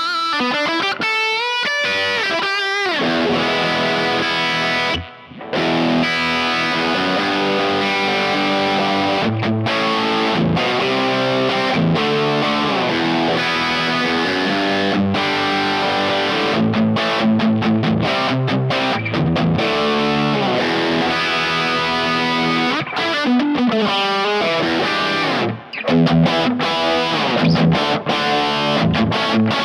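Electric guitar played through a Kemper Profiler profile of the Fried Taco 20, an amp with a Friedman-style preamp and a 20-watt power section from two EL84s. It plays distorted modern rock riffs and chords, with a brief break about five seconds in. Near the end a Gibson Les Paul takes over on a different profile, after a short gap.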